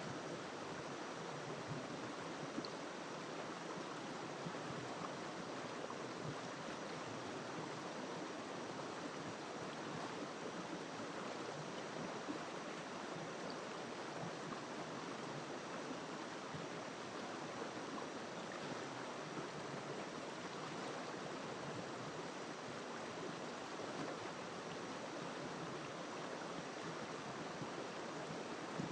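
River water flowing over rocks, a steady, even rushing.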